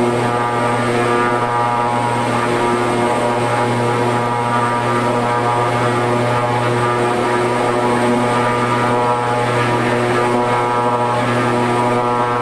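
Shorts 360's Pratt & Whitney Canada PT6A-65AR turboprops running steadily, heard from the cockpit, with the propellers held at about 1450 rpm for the flight idle torque check. A strong low propeller hum carries a stack of steady higher tones, unchanging throughout.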